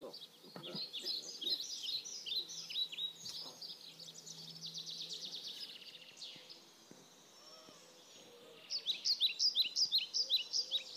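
Small songbirds singing outdoors: rapid runs of high chirps and trills, with a quieter lull in the middle and a fresh burst of song from about nine seconds in.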